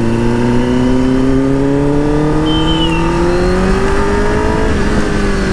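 Kawasaki ZX-10R's inline-four engine pulling steadily under acceleration, its pitch rising slowly for about four and a half seconds, then dropping as the throttle eases off near the end.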